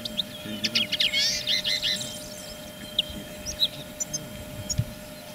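Small songbirds chirping and singing: a run of quick chirps and a rapid warbling phrase in the first two seconds, then scattered single chirps.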